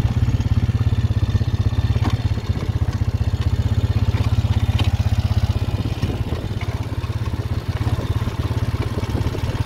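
Vehicle engine running steadily at low, even revs, with a few faint knocks over it.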